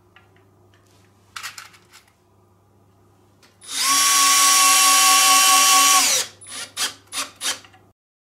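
Power drill-driver driving a wood screw through a metal corner bracket into a wooden shelf frame. The motor whines steadily for about two and a half seconds and slows slightly as it stops, then gives a few short pulses as the screw is snugged down. A few light clicks of the screw and bracket come first.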